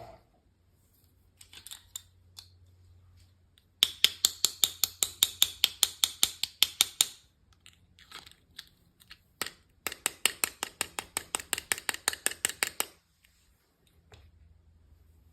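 Two runs of rapid, evenly spaced sharp clicks, about eight a second, each lasting around three seconds, with a few scattered lighter taps between them.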